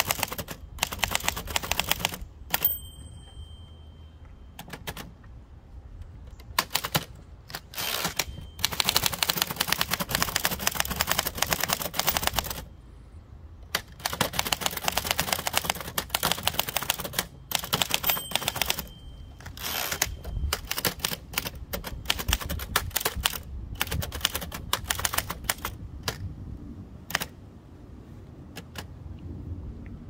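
1925 Remington Model 2 portable typewriter being typed on in fast runs of sharp keystrokes, with a few short pauses. Its carriage bell rings twice with a clear, pure tone, a couple of seconds in and again about eighteen seconds in.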